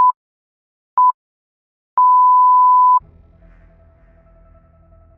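Electronic beeps at one pitch, counting down like a time signal: two short pips a second apart, then a long tone lasting about a second. Faint, low intro music follows.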